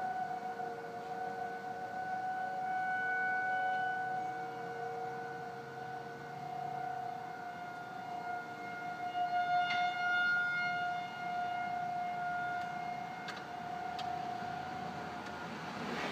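A sustained siren-like tone made of a few steady pitches, slowly swelling and fading in loudness; its source is unidentified.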